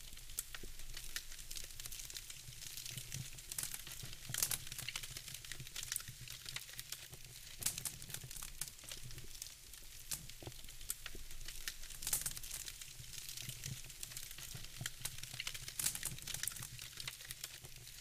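Wood fire in a fireplace crackling: a dense run of small sharp crackles with a few louder pops, over a faint low hum.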